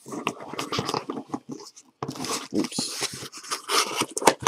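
Corrugated cardboard case flaps being pulled apart and folded back by hand: crackling, rustling and scraping of cardboard, with a brief pause a little before two seconds in and a sharp knock near the end.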